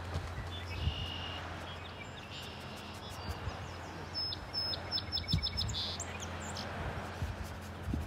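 A songbird singing: a couple of short high whistles in the first few seconds, then a quick run of about eight high notes around four to five seconds in, over steady background noise.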